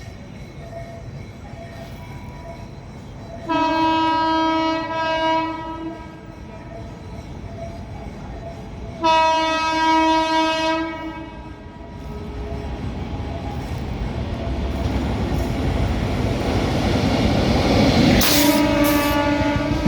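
Indian Railways express train horn sounding two long blasts of about two seconds each, then the rumble of the approaching train growing steadily louder, with a third horn blast near the end as it comes close.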